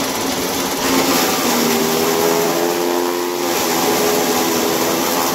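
Electric chaff cutter driven by a three-phase motor, running under load as it chops super napier grass into fodder. It makes a steady whirring hum with a whine that wavers slightly in pitch.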